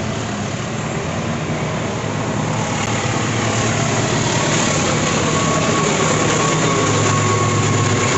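Diesel locomotive at the head of a passenger train approaching and passing close by: a steady engine rumble over dense running noise, slowly growing louder.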